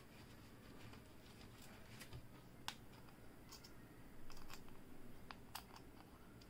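A few faint, sharp clicks and taps from a smartphone and a small precision screwdriver being handled as the phone's bottom screws are refitted. Several of them fall close together about two-thirds of the way through.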